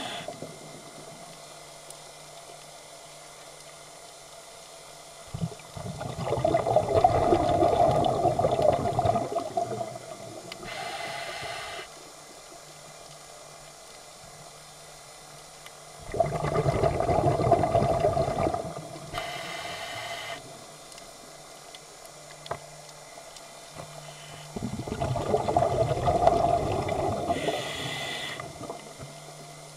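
Scuba diver breathing through a regulator underwater: three long rushes of exhaled bubbles, about nine seconds apart. A brief higher hiss follows each.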